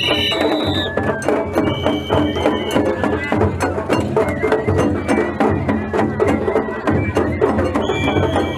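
Japanese festival hayashi music: a high held melody over quick drum and percussion strikes, several a second.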